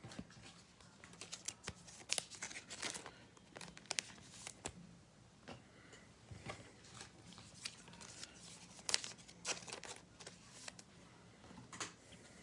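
Faint, scattered crinkling and rustling of trading cards and their plastic pack wrapping being handled.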